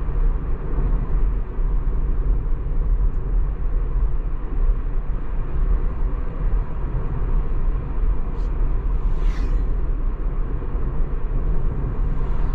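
Steady low tyre and road rumble inside the cabin of a Tesla Model 3 electric car cruising at about 65 km/h, with no engine sound. A brief hiss rises and falls about nine seconds in.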